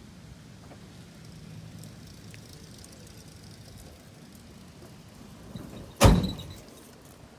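A single loud clank about six seconds in, with a brief metallic ring, over a faint low hum.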